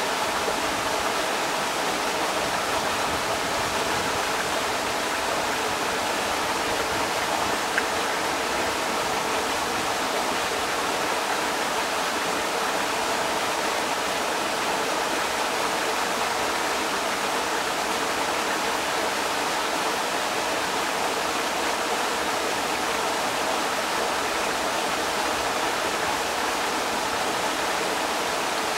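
Creek water rushing steadily over rocks, an even, unbroken wash of noise.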